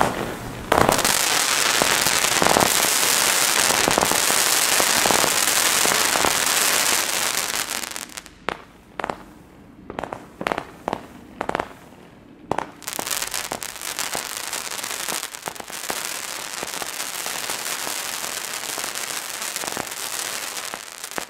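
Weco Power Box, a 100-shot 11 mm comet firework cake, firing a dense rapid stream of shots for several seconds. Near the middle the stream thins to a handful of separate launches a fraction of a second apart, then turns into a steady dense run again, a little quieter.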